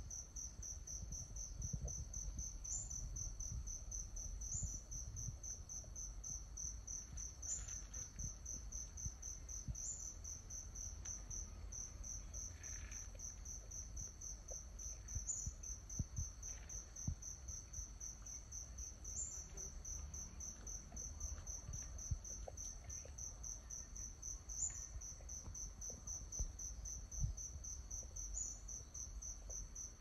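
Insects chirping steadily in a fast, even, high-pitched pulse, with a slight lift in pitch every couple of seconds. A low rumble and scattered small ticks sit underneath.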